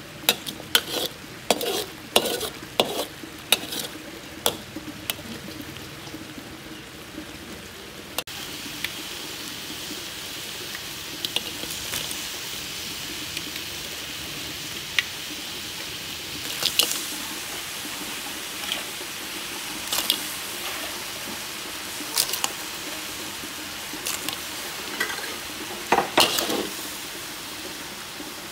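Metal spatula scraping and stirring chili paste as it fries in a wok, with quick repeated clicks for the first several seconds. After that a steady sizzle, with scattered sharp clacks as raw blue swimming crab pieces go into the wok.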